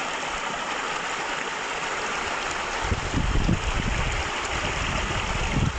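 Steady rushing of flowing water, an even hiss-like wash; about three seconds in an irregular low rumble joins it.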